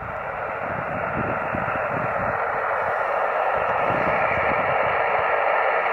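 Yaesu FT-817ND transceiver's speaker giving a steady hiss of 10-metre band noise in upper sideband, with no station coming through between transmissions. The hiss grows slightly louder.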